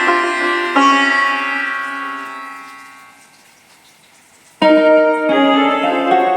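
Roland XPS-30 keyboard playing a piano-like voice: a chord struck just under a second in rings and dies away slowly. After a short pause a new chord sounds loudly, followed by more notes.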